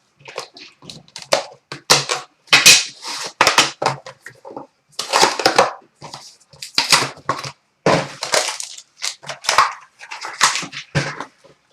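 Plastic shrink-wrap and cardboard packaging of a sealed trading-card box being torn open and handled, crinkling and tearing in irregular bursts.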